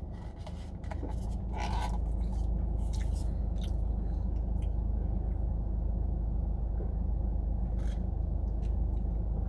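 Steady low rumble inside a car, with a few small clicks and scrapes as a plastic coffee-cup lid is worked open, and sips of coffee.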